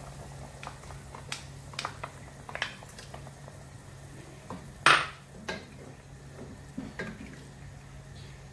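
A wooden spatula scraping tomato sauce out of a bowl into a pan of simmering broth and then stirring the pot, with scattered clicks and knocks of spatula and bowl against the pan; the loudest knock comes about five seconds in. A steady low hum runs underneath.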